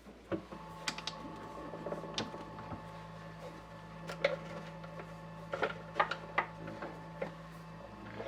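MDF rose engine lathe running a pattern: a small motor hums steadily, starting just after the start and stopping shortly before the end, while the lathe's rocking mechanism gives irregular clicks and knocks.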